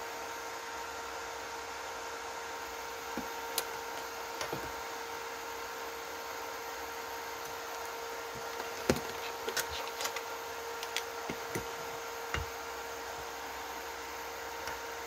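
Steady whirring hum with a faint whine from a powered-up inverter welding machine. Light clicks and knocks of multimeter probes and handling come a few seconds in and several times in the second half.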